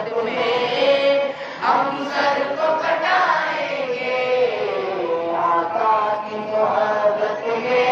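A teenage boy singing solo, holding long drawn-out notes that glide slowly up and down.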